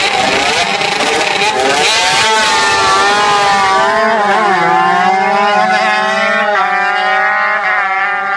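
Two drag-racing motorcycles launch off the start line and accelerate flat out down the strip, engines revving hard. Their pitch climbs and then drops in steps several times as they shift up through the gears and pull away.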